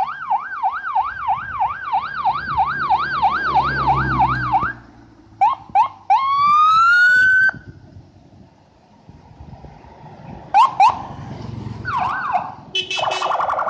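Electronic vehicle siren from the approaching bus convoy, wailing in fast rising-and-falling sweeps for about five seconds, then a few short chirps and one long rising whoop. More chirps follow later, and near the end a short burst of several tones sounding together, over the low rumble of passing engines.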